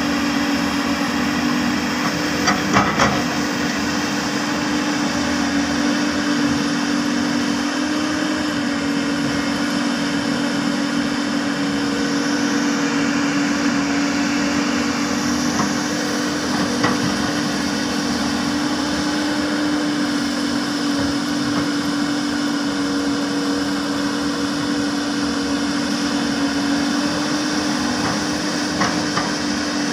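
Hyundai 330LC-9S excavator's diesel engine running steadily with a constant hum. A few short knocks come through, a cluster about three seconds in, one past the middle and one near the end.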